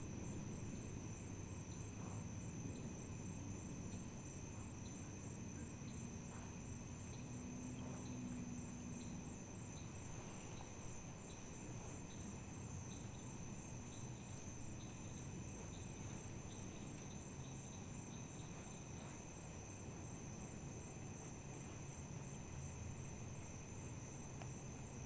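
Faint chorus of crickets and other insects, several steady high trills layered together, one of them pulsing. A quick series of small ticks joins in around the middle.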